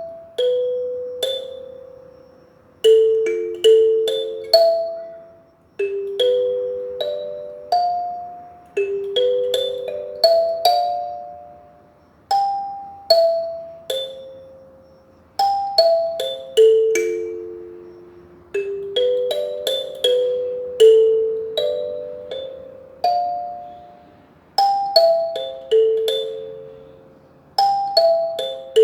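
Kalimba playing a slow, gentle melody of single plucked notes, each ringing out and fading, sometimes two overlapping.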